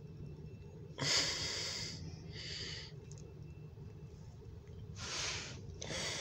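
A person breathing close to the microphone: four short, hissy breaths or sniffs, one about a second in, then at about two and a half, five and six seconds. Under them runs a low steady hum inside a car.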